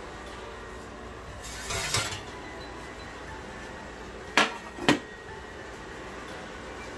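Aluminium sheet pan handled at an open oven: a short scrape about one and a half seconds in, then two sharp metal clanks about half a second apart as it is set down on the oven door.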